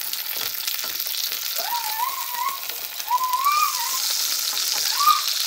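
Beef rump roast searing in a hot frying pan, the fat sizzling steadily. A wavering whistle-like tone rises and falls over it three times.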